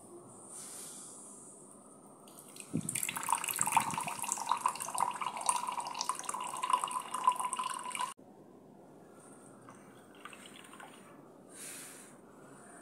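Blended beetroot juice pouring from a steel pot through a mesh tea strainer and splashing into a drinking glass, loudest for about five seconds from around three seconds in. It then cuts off abruptly to a faint trickle.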